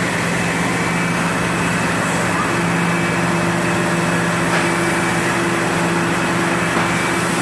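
Steady hum of industrial machinery, with a higher steady tone joining about two and a half seconds in.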